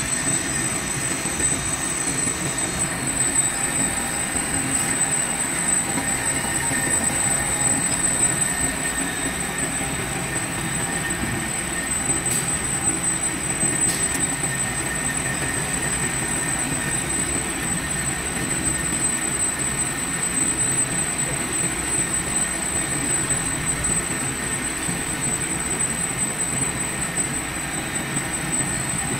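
Large engine lathe running steadily while its tool makes the final reboring cut inside a big metal pressure-pad ring. It is a steady machine noise with a thin, high, unbroken whine over it.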